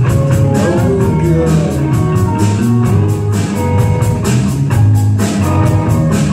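Live rock band playing: electric guitars, bass guitar and a drum kit keeping a steady beat.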